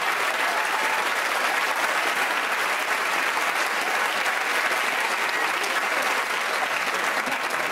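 Studio audience applauding steadily, a dense unbroken sound of many hands clapping.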